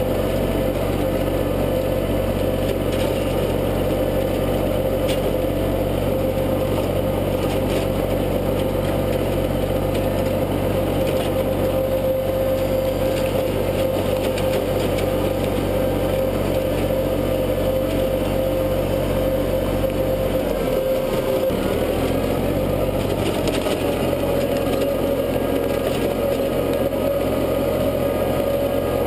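International tractor engine running steadily under load while a PTO-driven rotary tiller churns soil behind it. About 21 seconds in the engine note dips briefly, then steadies slightly higher.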